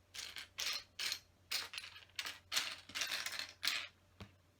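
Loose LEGO pieces clattering as a hand sifts and stirs through a pile of bricks, a string of short plastic rattles about two a second.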